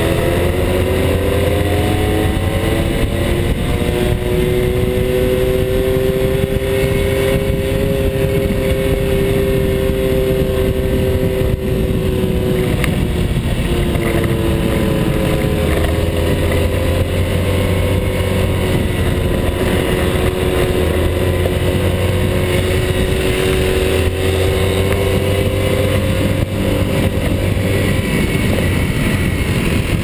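Small motorbike engine running on the road at speed, heard close with wind rushing over the microphone. The engine pitch climbs over the first several seconds, holds, dips briefly about halfway through and picks up again.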